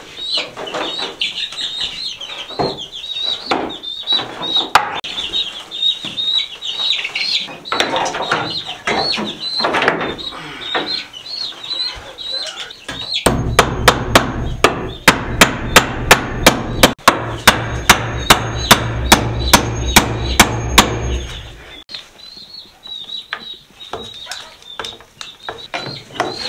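Baby chicks peeping continuously in high, short calls. About thirteen seconds in, a hammer starts striking a board on the coop's wooden wall framing, about three blows a second for some eight seconds with a brief pause midway, then stops.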